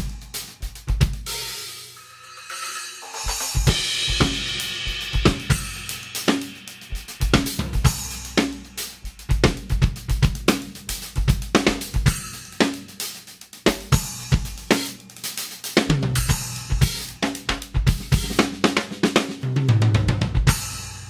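Drum kit played in a steady groove with Istanbul Mehmet Samatya splash cymbal accents over snare, bass drum and hi-hat. A cymbal hit about four seconds in rings and dies away over a couple of seconds. Low tom strokes come near the end before the last hits ring out.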